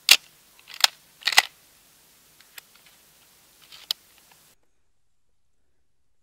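Semi-automatic shotgun being handled and loaded: a sharp metallic clack right at the start, then a run of smaller clicks as shells are pushed into the magazine tube through the loading port. The sound cuts off abruptly about halfway through.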